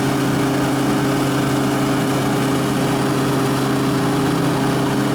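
Biomass sawdust burner running: a steady mechanical hum with a low drone that does not change.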